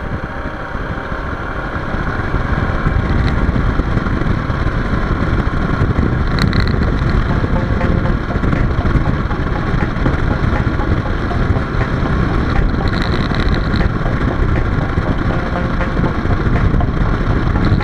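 Suzuki XF650 Freewind's single-cylinder engine running at a steady road cruise, with wind rushing over a chest-mounted camera's built-in microphone. It gets louder about two seconds in.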